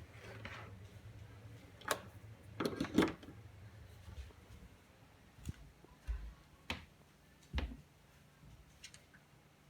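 Scattered clicks and knocks of hands working on a pachislot machine, about seven in all, the loudest about three seconds in, over a low hum that fades after the first few seconds.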